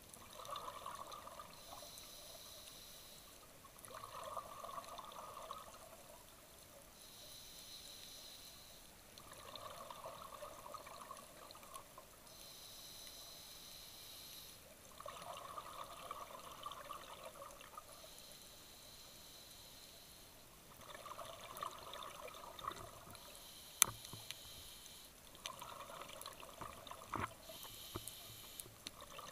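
Scuba diver breathing through a regulator underwater: a hiss on each inhale alternating with bubbling on each exhale, about one breath every five seconds. A single sharp click comes about two-thirds of the way through.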